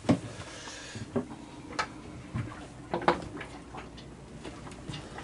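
Several light knocks and clicks at irregular intervals, the loudest right at the start and about three seconds in, as a person moves about inside a small wooden yacht cabin.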